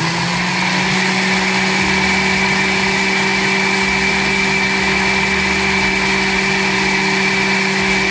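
Countertop blender motor running steadily, pureeing a liquid mix of habanero peppers, carrots and vinegar, an even hum with a thin high whine over it.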